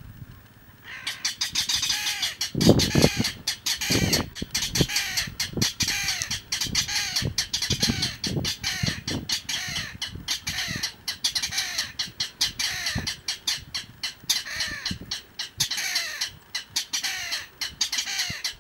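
Mangrove rails (Rallus longirostris) giving their long clattering call: a rapid run of harsh, dry notes, each dropping in pitch, about four or five a second, starting about a second in. A few low thumps sound around three and four seconds in.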